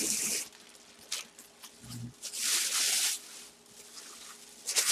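Clear plastic bag crinkling and rustling in several short bursts as it is pulled off a full-size football helmet.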